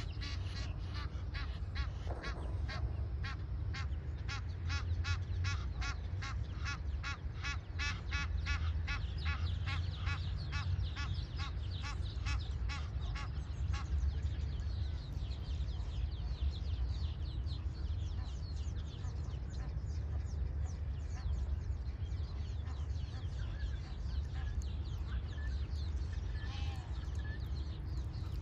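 Birds calling: a fast run of repeated calls, about three or four a second, for roughly the first half, then fewer scattered calls, over a steady low rumble.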